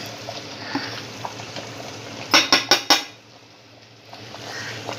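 Ground spices scraped off a ceramic plate into an aluminium pot, with four quick, sharp clinks against the pot a little past halfway. Near the end, a hand rubs the masala into the beef in the pot.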